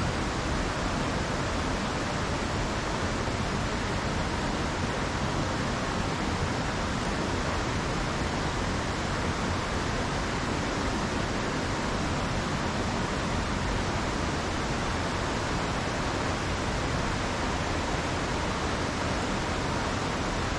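Mountain creek rushing steadily over boulders and small cascades, an even, unbroken wash of water.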